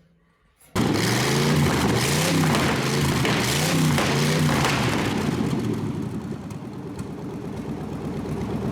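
Vehicle engine revved in a series of blips, rising and falling about once a second, then settling to a steadier run. It cuts in suddenly.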